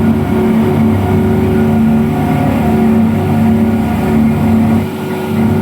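Speedboat's twin 250 hp engines running loud and steady at a constant pitch, with a brief dip in level about five seconds in.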